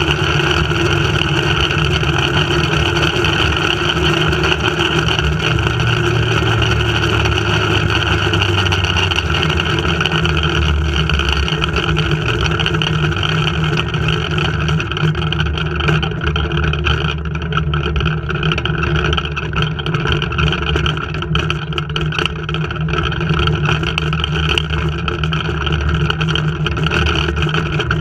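Flying-fox (zipline) trolley running along its steel cable, a loud, steady rolling hum mixed with rushing air. The higher hiss thins out about halfway through.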